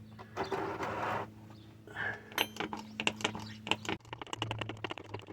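Small hand-operated fluid transfer pump on a bottle of transfer case fluid being worked, with a brief rustle and then a run of sharp plastic clicks from the pump strokes that grows quicker about four seconds in.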